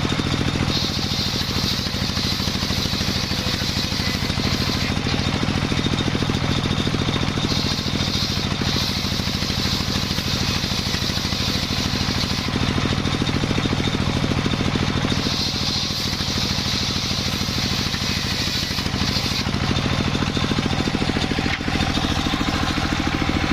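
Sawmill running steadily on its engine, with a higher hiss that comes and goes in several stretches of a few seconds as the saw cuts through a jackfruit log.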